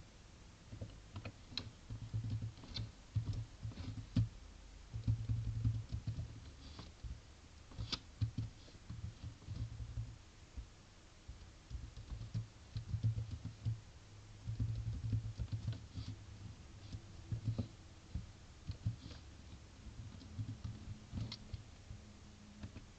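Typing on a computer keyboard: irregular runs of key presses with short pauses between them.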